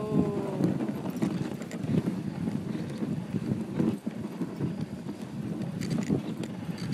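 Dog sled running over snow behind its dog team: the sled's runners scrape and rattle and the dogs' feet pad along in a steady, irregular clatter. A short call, falling slightly in pitch, sounds right at the start.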